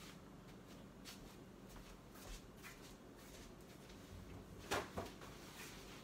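Faint clatter of kitchen things being handled during a clean-up: scattered light clicks and knocks, with two louder knocks close together about five seconds in.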